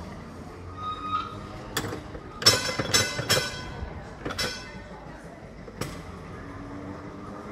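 Tram wheels clacking over rail joints and pointwork as the tram rolls slowly into the terminus, a cluster of sharp metallic clacks with a brief ringing squeal about two and a half to three and a half seconds in, then a few more single clacks.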